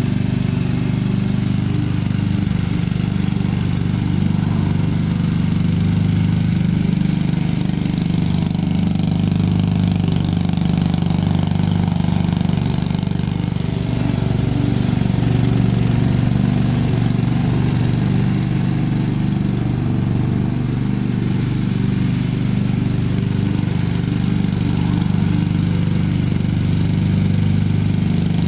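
Craftsman riding lawn mower engine running steadily at an even speed.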